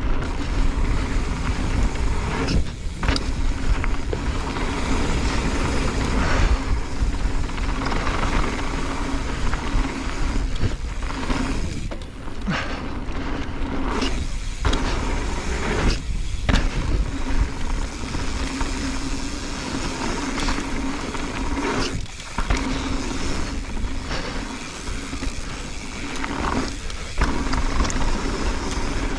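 Wind rushing over the camera microphone and mountain-bike tyres rolling over a loose gravel-and-dirt trail at speed, as a steady rough noise with a few brief lulls.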